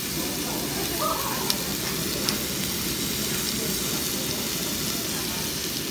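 Meat sizzling on a hot tabletop barbecue grill plate, a steady hiss. Two sharp clicks come about one and a half and two seconds in, from metal tongs against the grill.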